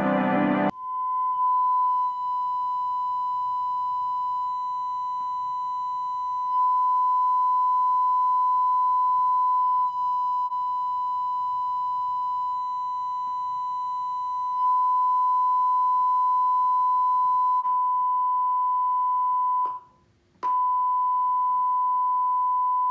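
Steady electronic test tone at about 1 kHz, a sine-like signal with faint overtones, its volume stepping up and down a few times. It cuts out briefly with a click about twenty seconds in, then comes back.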